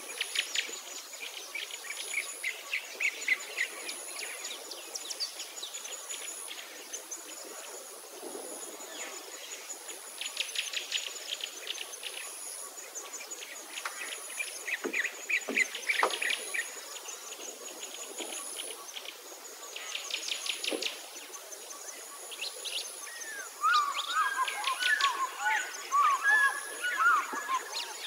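Several wild birds calling, with rapid repeated chirping trills and a thin, high, steady insect buzz that comes and goes. A warbling song joins in near the end.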